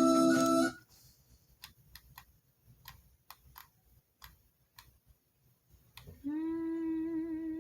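Slot game sound effects: a chime cuts off under a second in, followed by a few soft, irregular clicks. About six seconds in a steady humming tone starts and holds.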